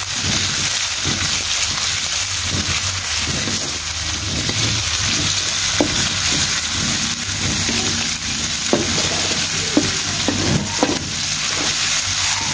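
Sliced shallots, garlic and red chilies sizzling steadily in hot oil in a metal wok, stirred with a wooden spatula that scrapes the pan and gives a few sharp taps against it in the second half. The chilies are being fried until they wilt.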